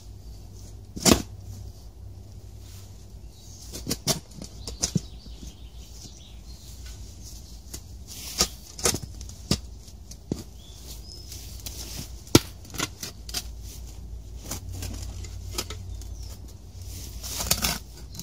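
Digging with a spade in soil among nettles and grass: the spade pushed in with a boot and dirt shifted, giving a few sharp knocks and scrapes, the loudest about a second in and near the middle, amid rustling vegetation over a steady low rumble.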